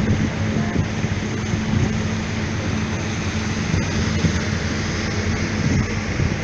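Motorboat engine running steadily with a low hum, under a constant hiss of wind and water.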